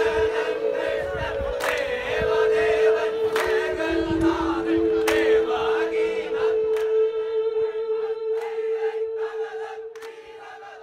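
The crew of a Kerala snake boat chanting and shouting a vanchipattu boat song in chorus over long held notes. Sharp strikes mark the beat about every second and a half to two seconds. The sound fades away over the last few seconds.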